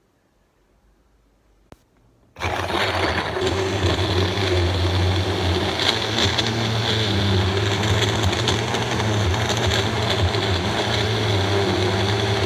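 Countertop blender switched on about two seconds in and running steadily at high speed, blending milk, strawberries and bananas into a smoothie.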